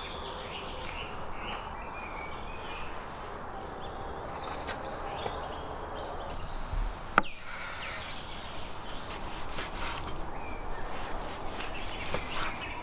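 Large knife slicing smoked beef tongue on a wooden cutting board, with faint cutting ticks, over steady outdoor background noise and birds chirping; one sharp knock about seven seconds in.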